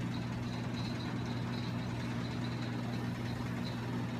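A steady, unchanging low hum of running machinery or electrical equipment, with no knocks or other events.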